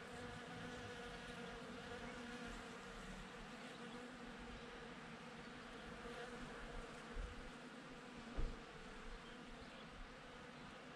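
Bees buzzing steadily as they forage among blossoms, a continuous hum with several overtones. Two brief low bumps come about seven and eight and a half seconds in.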